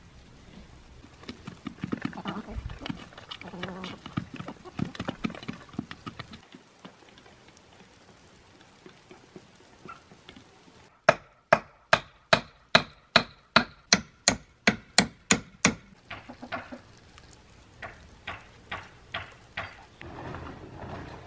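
A rapid run of loud, sharp, evenly spaced knocks, about three a second, lasting some five seconds after a quiet spell. A few softer, irregular knocks follow, and before the quiet spell there are mixed, busier sounds.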